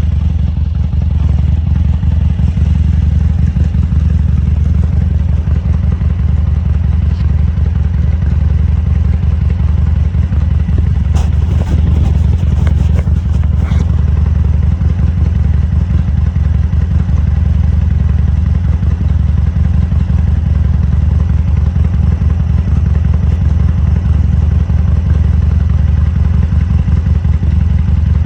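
Harley-Davidson Sportster 1200 Custom's air-cooled V-twin engine running steadily at a low, even pitch, with a few brief clicks about halfway through.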